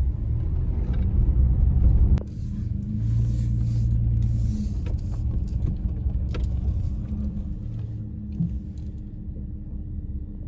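Engine and road noise heard inside a moving pickup truck's cab: a steady low rumble with a constant hum. It drops abruptly in level about two seconds in, and a few faint ticks come through.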